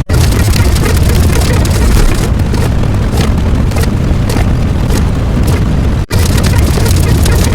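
A loud, continuous rumbling roar sound effect, like an explosion or eruption, with deep bass and crackly high noise. It cuts out for an instant about six seconds in and starts again, as a looped clip restarting.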